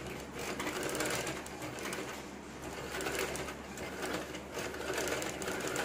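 Usha sewing machine running with its bobbin winder engaged against the handwheel, winding thread onto a bobbin: a fast, even clicking whir that swells and eases about once a second.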